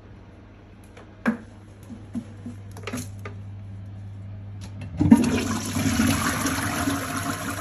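Toilet flushing: water suddenly rushes into the bowl beneath a cat toilet-training seat about five seconds in and keeps running. A few light knocks and clicks come before it.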